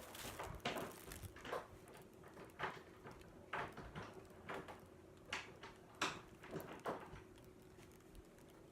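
Doors being shut and locked: a string of irregular knocks and clicks at uneven intervals, with a faint steady hum underneath.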